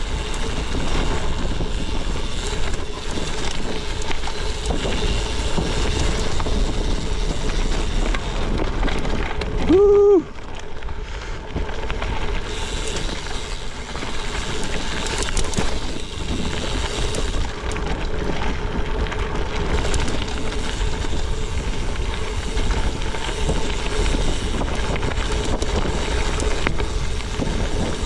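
Gravel bike rolling over a loose gravel fire road: a steady crunch and rattle of tyres on stones, with wind buffeting the microphone. About ten seconds in, a brief pitched tone sounds for about half a second.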